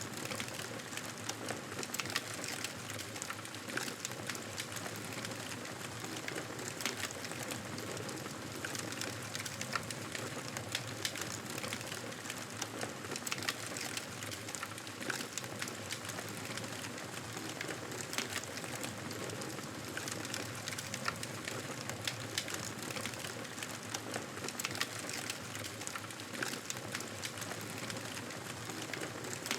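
Fireplace fire crackling, with irregular small pops and snaps over a steady hiss.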